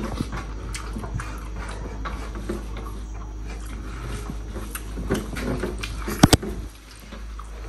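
Eating sounds: hands mixing rice on metal plates and chewing, with many small clicks and scrapes. Two sharp clinks come a little after six seconds.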